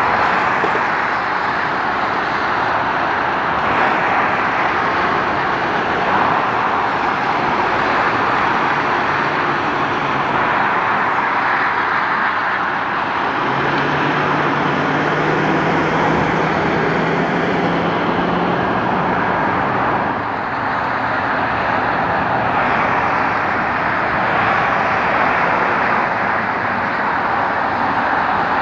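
Steady motorway traffic noise, the rush of tyres and engines on passing vehicles. Around the middle one engine's hum stands out for several seconds, rising slightly in pitch.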